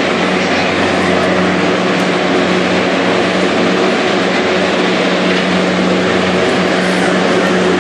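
A steady, unbroken machine hum with a rushing noise over it, holding one low pitch throughout.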